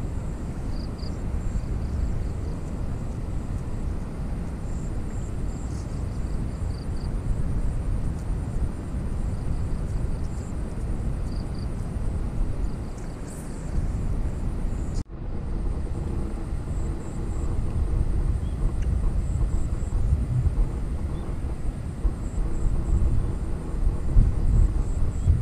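Wind buffeting the microphone outdoors: a steady low rumble, with faint high chirps above it. The sound cuts out for an instant about halfway through.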